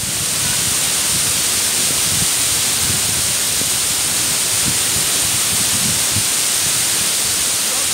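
Steady rushing of the Mumlava waterfall, water pouring over rock ledges into a pool.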